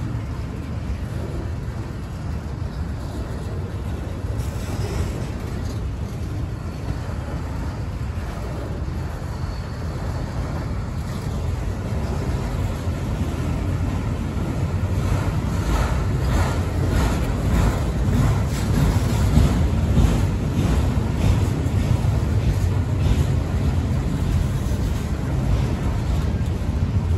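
Freight train of autorack cars rolling past: a steady low rumble of steel wheels on rail that grows louder about halfway through, with a run of sharp clacks in the second half.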